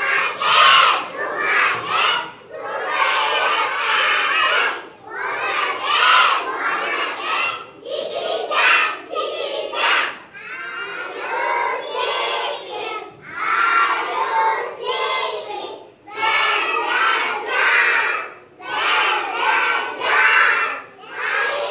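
A class of small children reciting an action rhyme together in loud, shouted unison, phrase after phrase with brief breaks between.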